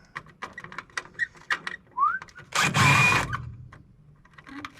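Clicks and clatter of tools and parts being handled while scrap is taken apart. A short rising whistle comes about two seconds in, and a louder noisy burst lasting under a second follows it.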